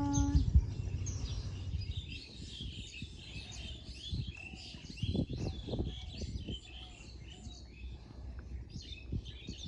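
Many small birds chirping and twittering together in a dense, continuous chorus, with a few low thuds about halfway through.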